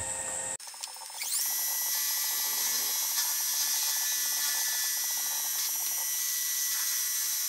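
Manual milling machine's spindle speeding up with a rising whine about a second in, then running steadily with a high-pitched whine as a quarter-inch end mill cuts a slot through steel connecting-rod stock.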